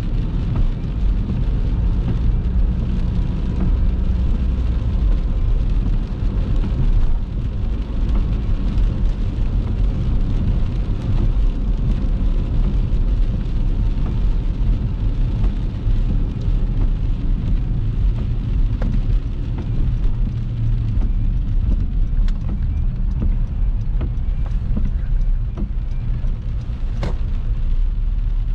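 Car driving, heard from inside the cabin: a steady low rumble of road and engine noise, with a single brief click near the end.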